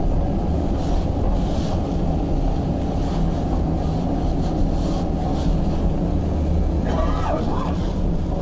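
Tram running along street track, with a steady low rumble of its motors and wheels on the rails.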